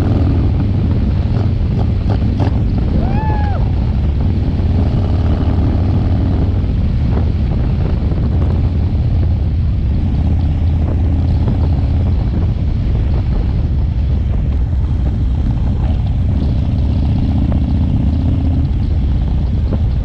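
A 2017 Harley-Davidson Low Rider S's V-twin engine running steadily while the bike is ridden down the road.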